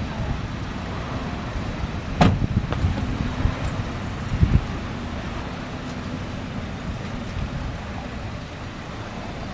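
Car engine running with steady low outdoor traffic noise. A car door shuts with a sharp knock about two seconds in, and a low thump follows a couple of seconds later.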